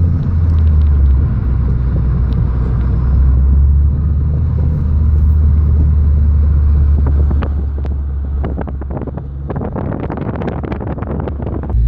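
Steady low road and drivetrain rumble inside a Mitsubishi Lancer Ralliart's cabin on the move, with a run of rattling clicks and clunks in the second half. The rattle is the car's recurring suspension clunk, later traced to a loose sway bar end link nut.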